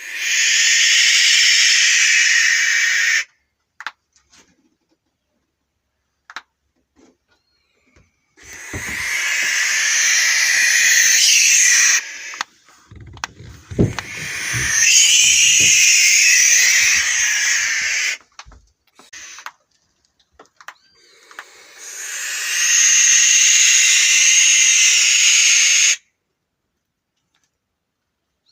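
Barn owl screeching: four long, raspy, hissing shrieks of a few seconds each, with silent gaps between them. A few low thumps come just before the third shriek.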